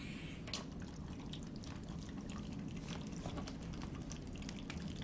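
Water bubbling in an oxygen bubble humidifier bottle as oxygen flows through it: a steady bubbling with many small irregular pops. It shows that oxygen is flowing through the humidifier.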